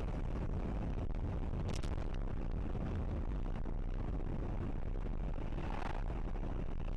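Steady low rumble of road and engine noise inside a moving car, picked up by its dashcam, with two brief faint higher sounds about two seconds in and near the end.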